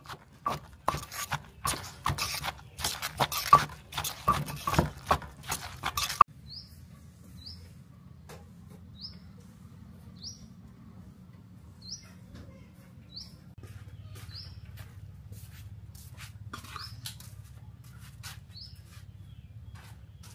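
A wooden pestle knocking and a spoon scraping in a clay mortar, mixing a pounded santol salad, in quick irregular strokes for about six seconds. Then a small bird chirps, one short high note about once a second, over a faint low hum.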